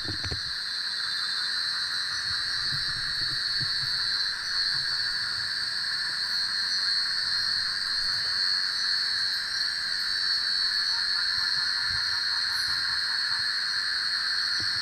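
Steady chorus of night insects, an even high-pitched drone in several bands, with a few faint low thumps.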